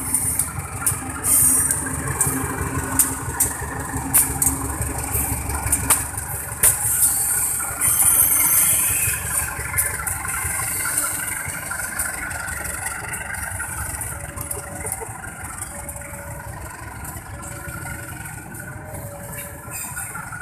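CC 203 diesel-electric locomotive hauling a passenger train past, its engine running with a low rumble and the wheels clicking over the rail joints; the rumble is loudest in the first half and fades later on.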